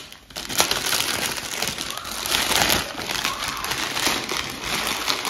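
Gift wrapping paper crinkling and rustling as a present is unwrapped by hand.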